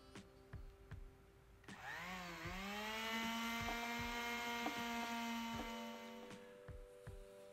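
A handheld corded power tool, worked against a wooden panel, starts up a little under two seconds in. Its pitch dips briefly and then settles into a steady hum, which runs for about four and a half seconds and stops sharply.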